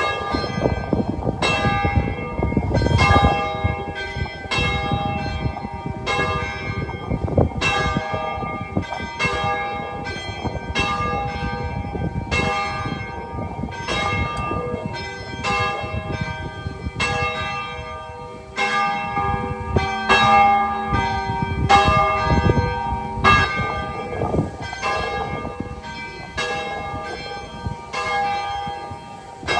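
Church bells ringing: a steady run of strokes, several bells of different pitch sounding over one another as each ring dies away.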